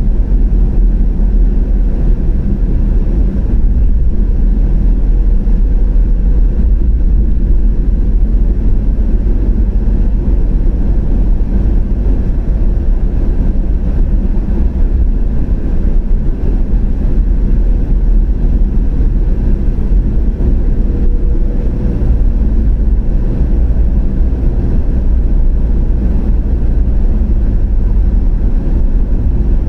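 Steady low rumble of a car driving on the road: tyre, engine and wind noise with no change in pace.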